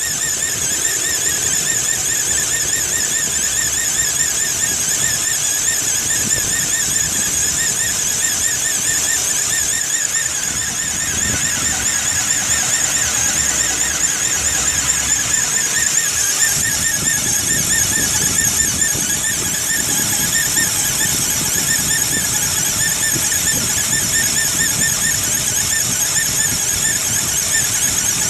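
Loud, continuous high-pitched squeal with a fast wobble in pitch from the engine bay of a cold-running 2008 Ford Explorer. The belt, tensioner and a pulley are new, and the owner suspects the fan clutch.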